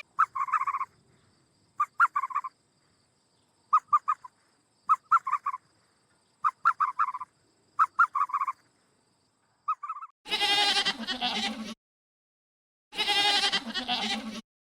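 A fowl calling in short clusters of quick notes for about ten seconds, then two long, loud bleats from a sheep or goat.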